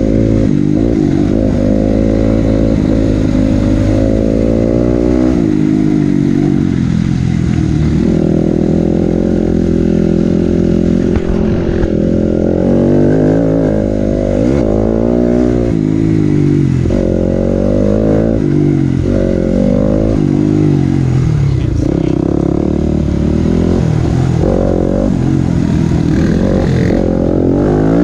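Dirt bike engine revving hard around a motocross track. Its pitch climbs and drops again and again as the throttle opens and shuts, with stepped changes through the gears.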